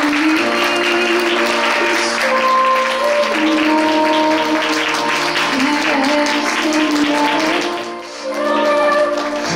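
Instrumental processional music with long, held melody notes over a steady round of applause. The clapping fades out about eight seconds in, as the music briefly dips and then carries on.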